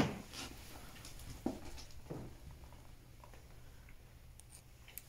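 Footsteps and scuffs of people moving slowly over a debris-strewn floor: a sharp knock at the start, a few softer steps, then quieter with faint small clicks near the end.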